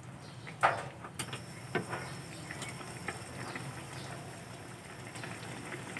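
Wooden spatula stirring pork adobo in a pan, knocking sharply against the pan once about half a second in, then a few lighter taps. A little after a second in, a steady gas burner hiss starts and holds as the flame is turned up.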